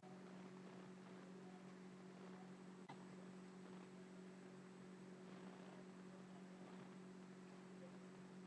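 Near silence: room tone with a steady low electrical hum and one faint click about three seconds in.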